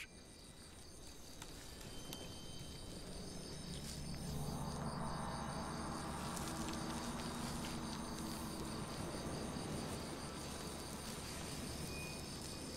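Night-forest crickets and other insects chirping in steady, pulsing high trills. A low hum swells in beneath them a few seconds in and holds.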